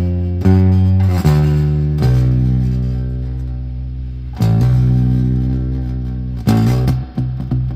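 Electric bass guitar played with a pick through its neck pickup: a few plucked notes, then two low notes each left ringing for about two seconds, and a quick run of notes near the end.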